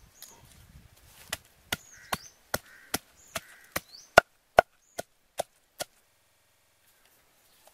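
Wooden pestle pounding spice paste in a wooden mortar: twelve sharp wooden knocks, about two and a half a second, starting about a second in and stopping about six seconds in.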